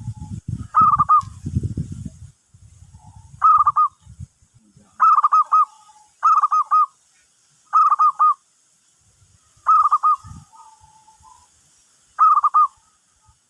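Zebra dove (perkutut) calling: seven short phrases of three or four quick, clear cooing notes, a second or two apart, with lower drawn-out notes between some of them. Low rumbling in the first two seconds.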